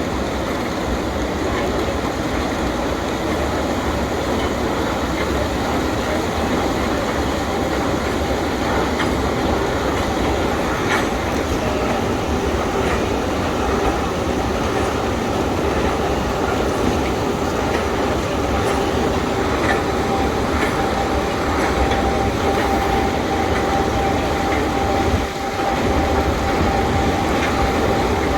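KU 300/23 bucket-wheel excavator running: a loud, steady mechanical din with scattered clanks and squeals, and a steady whine that joins about two-thirds of the way through.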